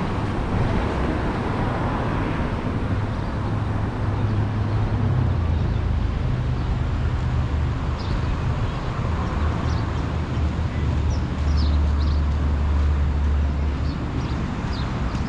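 Outdoor street ambience: a steady low rumble of traffic, with several short high bird chirps from about halfway on.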